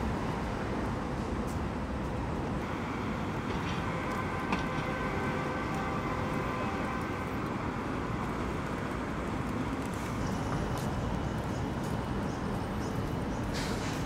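City street traffic: cars and buses passing at an intersection, a steady low rumble of engines and tyres with a few faint clicks.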